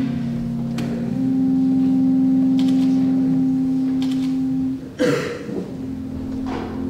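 Organ music holding slow, sustained chords that change about a second in and again near five seconds, with a short noisy break around the second change.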